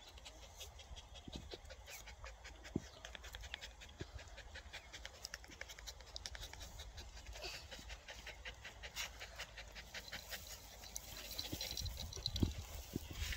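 A puppy panting quickly and steadily, open-mouthed with its tongue out, with a few low bumps near the end.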